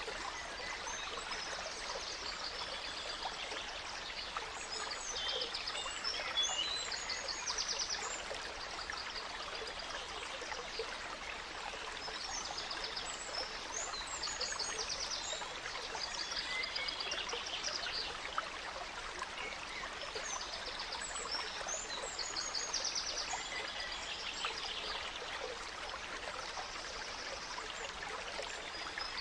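A gentle stream running steadily, with songbirds singing short, repeated trilling phrases over it every few seconds.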